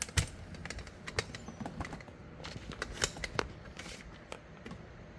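Irregular light clicks and taps of hands handling things at close range, thinning out after about three and a half seconds.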